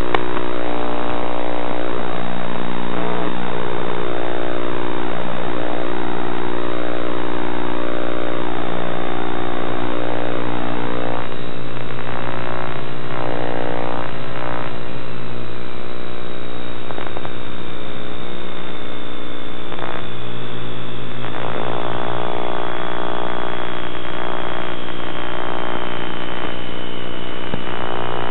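Onboard sound of a radio-controlled model airplane in flight: its motor and propeller give a steady buzzing drone with a high thin whine that drops slightly in pitch in the second half.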